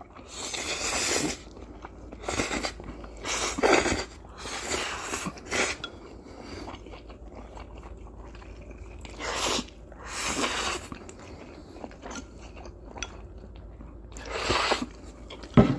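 Two people slurping spicy instant ramen noodles (Samyang Buldak) off chopsticks: a string of separate noisy slurps every second or two, with quieter chewing between.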